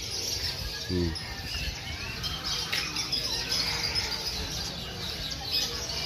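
Many caged songbirds chirping and calling at once, a dense jumble of short, high chirps and twitters.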